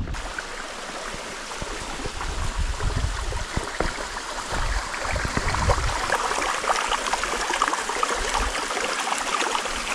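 Small mountain waterfall spilling down a rock face into a stony streambed: a steady rushing and trickling of water. Low rumbles come and go underneath.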